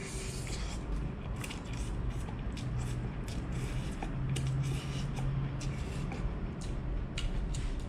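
A man slurping up a forkful of fried rice noodles, then chewing, with a string of short mouth clicks and smacks.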